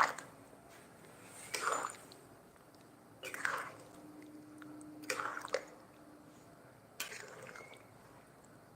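Someone chewing food with wet, squishy mouth sounds, a short burst about every second and a half.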